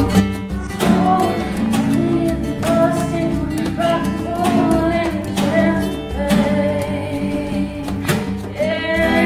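Acoustic guitar music, plucked and strummed, with a singing voice carrying a slow melody over it.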